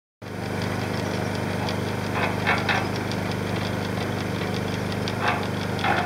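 A badly worn electric concrete mixer running: a steady motor hum with rapid, even ticking from its belt and pulley drive. A few louder scraping clanks come about two and a half seconds in and again near the end.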